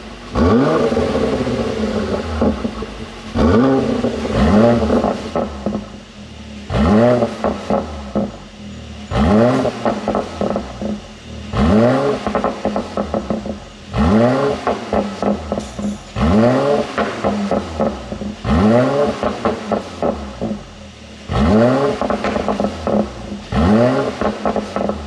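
Mercedes-AMG GLC 43's twin-turbo V6 revved in repeated blips, about every two and a half seconds, each followed by a stutter of exhaust pops and crackles on the overrun from a pop-and-crackle tune.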